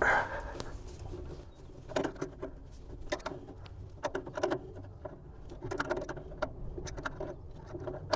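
Adjustable wrench working on a steel test-port fitting on a hydraulic valve block as it is loosened: irregular light clicks and taps, with a louder knock right at the start.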